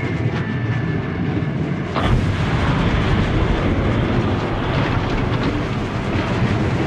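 1940s cartoon sound effects of an industrial building being destroyed: a dense rumbling din, with a sudden blast about two seconds in and more rumbling explosions after it.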